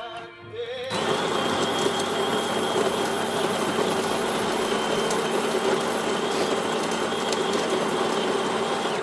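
Home espresso machine running steadily: a hiss with a few held hum tones that starts abruptly about a second in and cuts off abruptly near the end.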